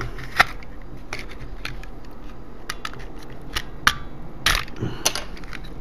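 Plastic case of a TV remote control being pried apart by hand: its snap-fit clips and plastic shell give a series of sharp clicks and cracks, scattered irregularly through a few seconds. Prying it open takes some effort.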